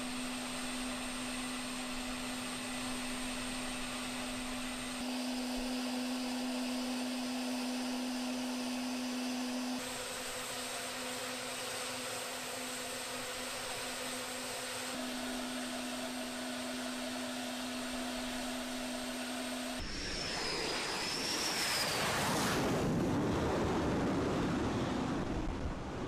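Steady mechanical hum of an aircraft carrier's flight deck, with jets and deck machinery running. About twenty seconds in, a louder jet-engine rush with a high wavering whistle takes over.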